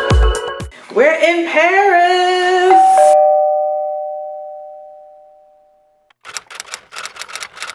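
The tail of an electronic dance track with a heavy beat cuts off, and an intro logo sting follows: a processed, voice-like tone glides up and steps through a few pitches, then ends on a bell-like two-note chime that fades out over about three seconds. Near the end come irregular clicks and crackles.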